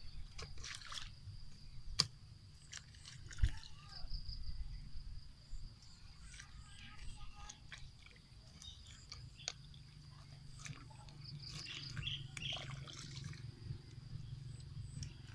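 Hands scooping and splashing in shallow muddy water: scattered small splashes and clicks, with a steady high tone throughout.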